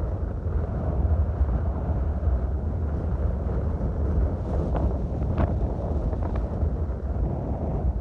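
Strong wind buffeting the microphone: a steady, loud low rumble, with a few brief sharper sounds around the middle.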